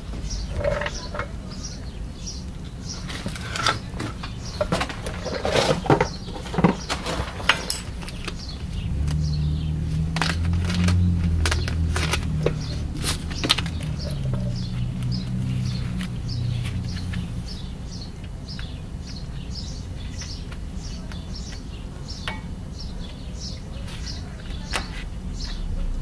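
Metal clicks and knocks of brake pad clips and pads being handled and fitted at a disc brake caliper bracket, most of them in the first several seconds. A bird chirps about twice a second throughout, and a low hum comes in for several seconds in the middle.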